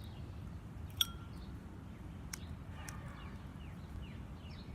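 Outdoor background rumble with a single sharp clink about a second in, then a bird's short falling chirps repeating about three times a second through the second half.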